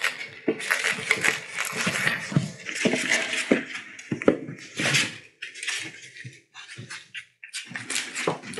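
Several four-week-old collie puppies eating kibble from a plastic trough: an irregular run of small clicks and clatters of kibble against the tray, with chewing.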